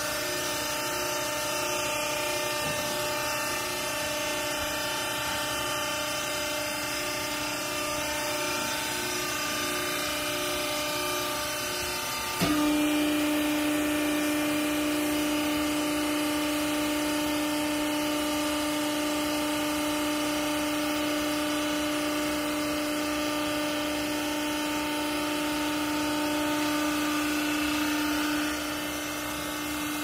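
Vertical hydraulic used-clothes baler's motor and hydraulic pump running steadily. About twelve seconds in, a sharp click, and a louder, steady hum sets in as the press plate is driven down on the clothes; it eases off a little near the end.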